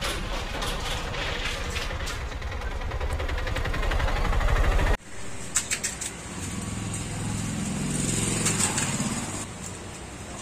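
Street background noise with a low rumble that builds for a few seconds and cuts off suddenly. After the cut, a thin plastic bag crinkles in short crackles as a hand rummages through the green chillies in it, over a low engine hum that swells and fades.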